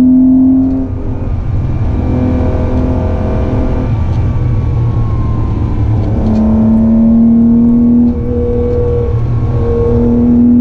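Classic Porsche 911's air-cooled flat-six engine, heard from inside the cabin while driving along a winding road. It pulls hard under load, eases off about a second in, then builds again and dips briefly near eight seconds before pulling once more.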